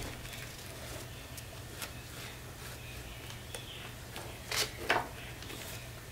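Soft rustling and handling of a cardstock folio and its paper pages as a needle and cording are worked through them for a pamphlet stitch. Two brief, louder brushing sounds come about four and a half seconds in, over a steady low hum.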